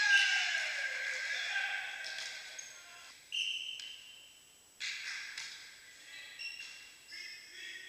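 Volleyball game sounds echoing in a sports hall: players' shouts at the start, then two sharp ball impacts about a second and a half apart, with short high squeaks of shoes on the court floor.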